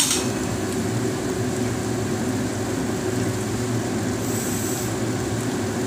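Pan of vegetables cooking on a gas stove, with a steady low rushing hum and a brief high hiss about four seconds in.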